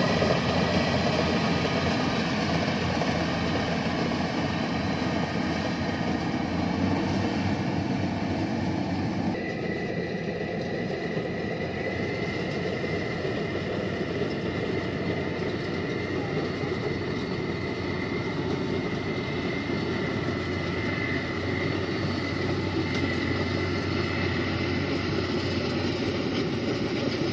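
Yanmar rice combine harvester running steadily, with engine and machinery noise and a thin high whine. The sound changes abruptly about nine seconds in, and the whine grows louder after that.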